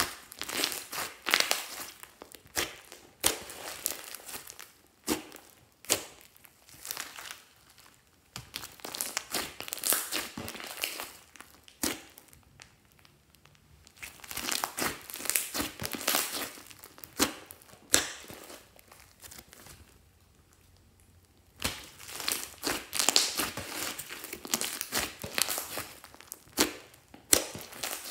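Slime being squished, poked and stretched by hand, making crackling, popping squelches in bursts of a few seconds, with two short pauses.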